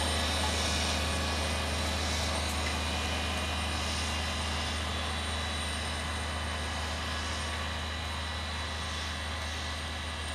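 Tractor engine running steadily with a low drone, slowly fading.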